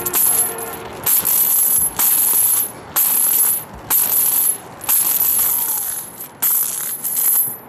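Heavy steel chains slammed up and down on asphalt like battle ropes, clanking and rattling in loud bursts about once a second.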